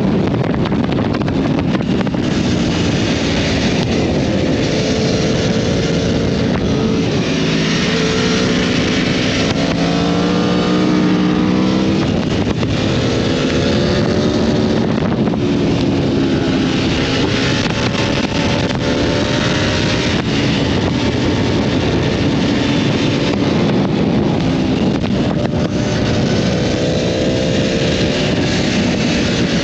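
Sport motorcycle engine running at road speed, its pitch climbing and falling several times as the throttle opens and closes, over a constant rush of wind and road noise.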